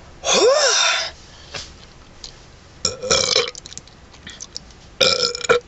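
A man belching loudly three times, about two seconds apart; the first burp rises and then falls in pitch. The burps are wet and bubbly.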